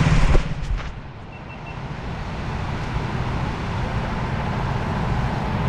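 VT250 rental kart engine idling loudly, then cutting out about half a second in with a couple of clicks. A lower, steady engine hum then remains and slowly grows louder over the next two seconds.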